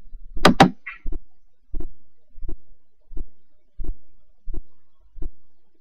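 A steady, evenly spaced low thump, seven beats about 0.7 seconds apart, like a slow drumbeat or heartbeat, preceded by a short, louder sound with a wavering pitch about half a second in.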